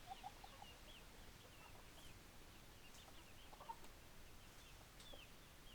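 Faint chickens clucking in short soft notes, with a loud one just after the start and another near the middle, over many brief high chirps.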